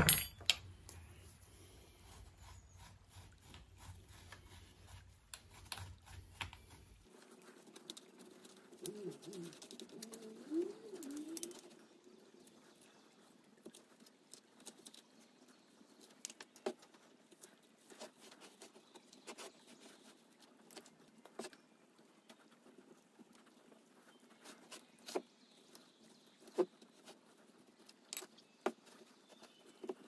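Gloved hands packing and pressing casting sand into a square metal flask around copper-tube sprues: faint scattered taps, scrapes and rustles of sand and metal, with a sharp knock right at the start. A steady low hum underlies the first few seconds and cuts off suddenly.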